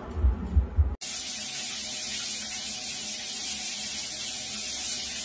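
Overhead rain shower head running, a steady hiss of water spray that starts abruptly about a second in, after a brief low rumble.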